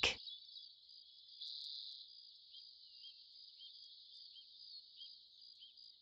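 Faint rainforest ambience: a steady high-pitched chorus of insects, with short chirps repeating about every half second in the second half.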